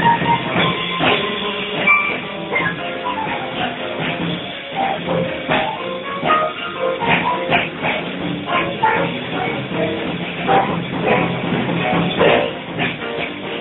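Small jazz group playing live: upright piano, bass and drum kit playing a busy, up-tempo passage.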